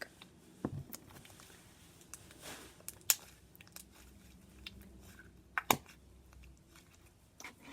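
Butter slime being squeezed and poked by hand: a few soft, sticky clicks and a brief faint crackle, with quiet in between.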